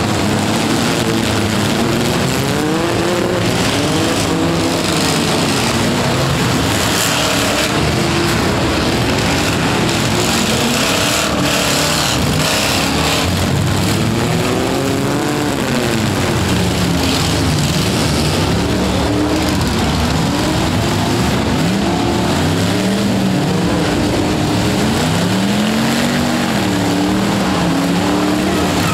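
Several demolition-derby farm trucks' engines revving up and down again and again, their pitch rising and falling, over tyre and crowd noise, with a few bangs from the trucks colliding.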